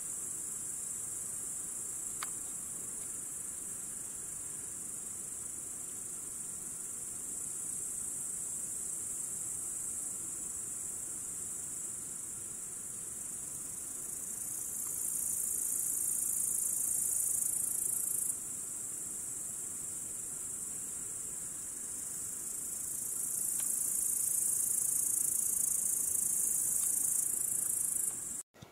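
Crickets singing in a steady, high-pitched continuous chorus, swelling louder twice for a few seconds.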